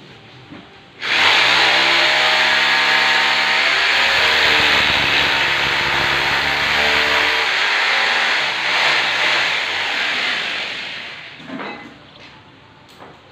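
Electric drill boring into a window frame, the motor running under load; it starts sharply about a second in, runs for about ten seconds, and winds down near the end, followed by a few light knocks.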